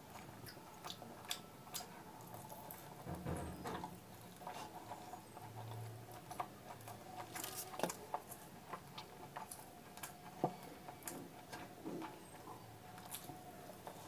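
Close-miked eating sounds: irregular wet clicks and smacks of chewing puri soaked in curry, with the soft squish of fingers tearing the puri.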